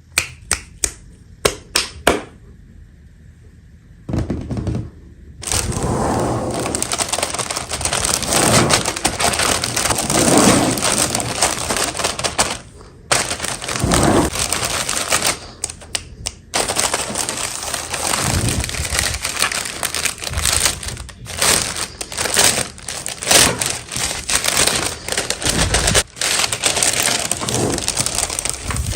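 Toy packaging being crinkled and torn open in long crackling stretches with short pauses, after a few sharp clicks at the start.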